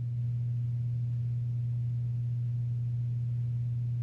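A steady low hum, one unchanging tone that neither rises nor falls.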